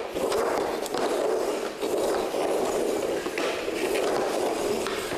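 Hockey stick blade and puck scraping and sliding back and forth across synthetic ice tiles in a quick pull-and-push stickhandling drill: a steady scraping with small knocks of the puck on the blade.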